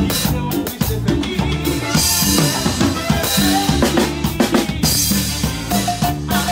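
Drum kit played live in a cumbia band: quick snare and rim strokes over a steady bass drum, with cymbals washing through the middle, the rest of the band playing along underneath.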